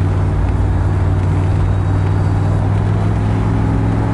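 1991 Chevrolet Camaro Z28's 5.0-litre V8 running steadily in second gear on the road, a low engine drone under tyre and road noise, heard from inside the cabin.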